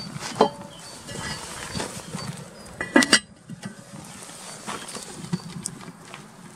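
A metal lid is set down on an oval black cooking pot about three seconds in: a short clatter of clinks with a brief metallic ring. A lighter knock with a short ring comes under a second in, and small scattered ticks sound in between.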